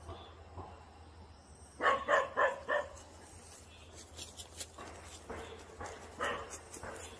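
A dog barking: a quick run of four loud barks about two seconds in, then a few softer barks in the second half.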